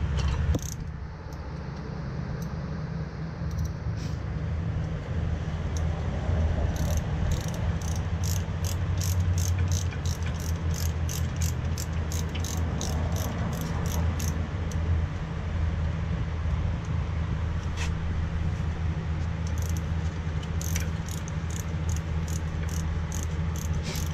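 Ratchet wrench clicking in two steady runs, about three clicks a second, tightening the 7 mm rear brake caliper bolts. A steady low hum runs underneath.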